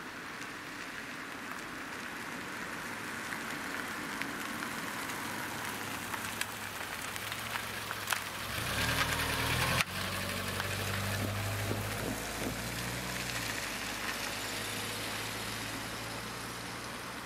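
Diesel locomotive approaching. Its engine's low drone grows louder and is strongest a little past the middle, over a steady hiss of rolling noise. A sharp click sounds about ten seconds in.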